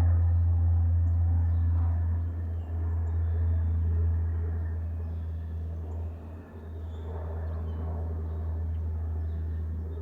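Twin turboprops of a Coast Guard HC-144A Ocean Sentry (CASA CN-235) giving a low, steady propeller drone that slowly fades as the aircraft departs after a touch-and-go.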